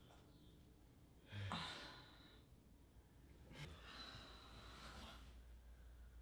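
A man and a woman breathing hard and sighing, out of breath: a voiced sigh about a second and a half in, a sharp click just past halfway, then a long breathy exhale.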